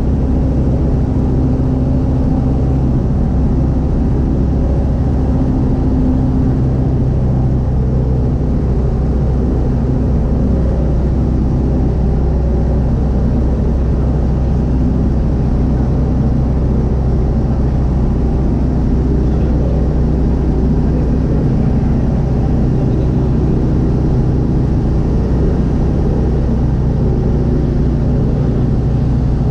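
Single-engine light aircraft's piston engine and propeller droning steadily, heard inside the cockpit.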